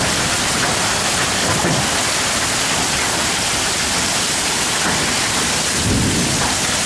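Heavy hail and rain pelting down in a severe thunderstorm: a dense, steady hiss, with a brief low rumble about six seconds in.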